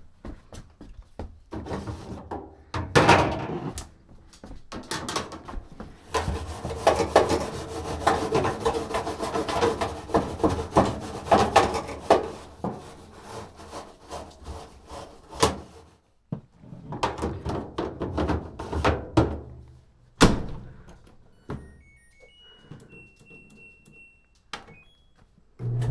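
Clattering, rubbing and knocking of hands and a tool working in a clothes dryer's lint-trap opening, with one sharp knock about twenty seconds in. Near the end comes a short run of electronic beeps at a few different pitches from the control panel as its dial is turned.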